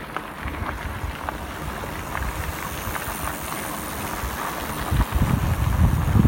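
Wind buffeting the microphone, turning into strong gusty rumbles about five seconds in, over a steady outdoor rush with a few light clicks.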